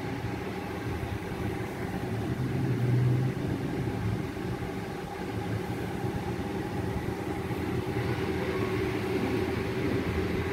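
Steady low mechanical hum with a few held tones, swelling briefly about three seconds in.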